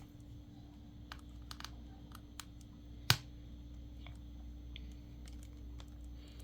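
Small scattered clicks and taps of a precision screwdriver and tiny screws being worked out of a phone's metal midframe, with one sharper click about three seconds in.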